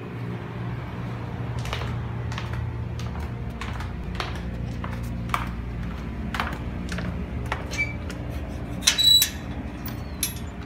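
Light clicks and knocks about twice a second as a person carries a plastic tub of dry cat food, with a louder rattle about nine seconds in, over a steady low hum.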